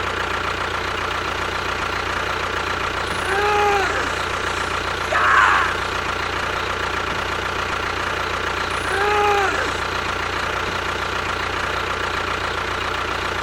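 An engine idling steadily throughout. Two short rising-and-falling tones sound over it about five seconds apart, with a brief noisy burst between them.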